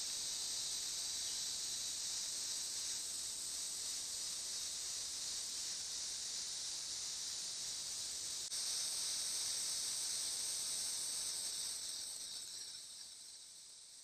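Steady high-pitched insect chorus of rainforest ambience, fading away over the last two seconds.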